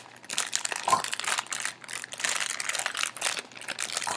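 Crinkly plastic candy bag crackling steadily as it is handled and pulled at to get it open.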